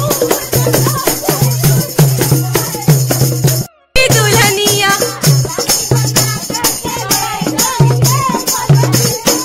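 Festive dance music with a steady drum beat, rattling percussion and a singing voice. The sound cuts out for a moment just before four seconds in.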